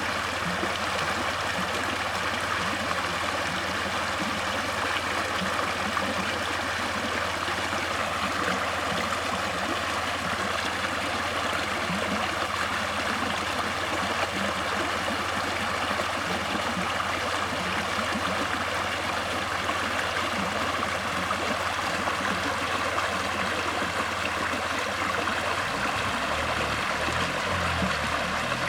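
Water flowing steadily, a continuous even rush with no break or change in level.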